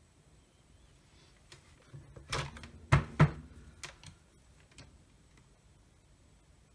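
Milwaukee M18 lithium-ion battery pack being unlatched and slid off the charger's plastic bay and handled: a cluster of hard plastic clicks and knocks about two to three and a half seconds in, the loudest two close together, then a few lighter ticks.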